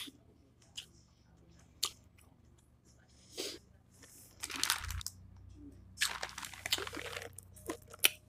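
Close-miked chewing and crunching of food in the mouth, in irregular bursts that get busier in the second half, after a sharp click at the start. Near the end a plastic drink bottle is opened.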